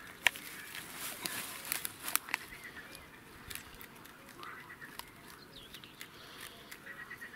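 A run of sharp clicks and light rustling in the first couple of seconds, as fishing line and tackle are handled and unwound. Then a few short bird calls, once about halfway through and again near the end.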